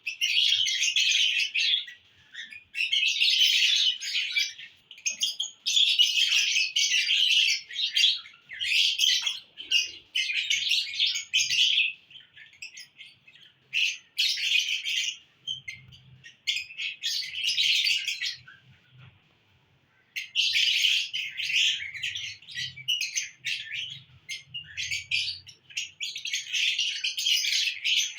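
Lovebirds chirping rapidly and shrilly in runs of a second or two with short pauses between them, falling quiet briefly about two-thirds of the way through.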